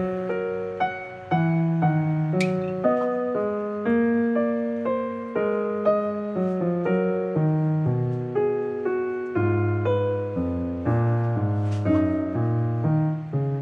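Background piano music, a steady stream of struck notes and chords, each fading after it is played.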